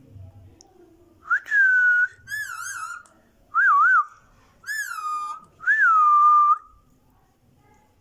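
Indian ringneck parakeet whistling: five loud whistles over about five seconds. Some slide down and then hold a steady note; others waver quickly up and down.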